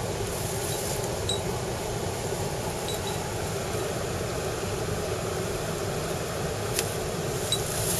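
Mountain stream water rushing steadily over rocks, with a single short click about seven seconds in.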